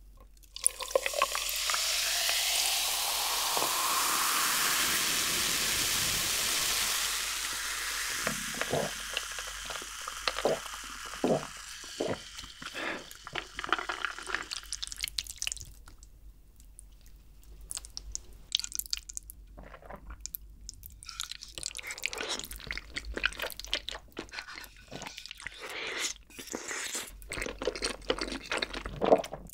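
Coca-Cola poured from a plastic bottle into a glass mug: a loud rushing pour whose pitch rises as the glass fills, then the fizz settling with many small crackles. Scattered clicks and small wet mouth sounds follow, with eating sounds near the end.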